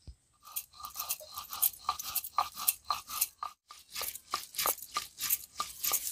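Stone roller pushed back and forth on a flat stone grinding slab, crushing dry whole spices and red chillies: quick repeated gritty crunching strokes, with one short pause about midway.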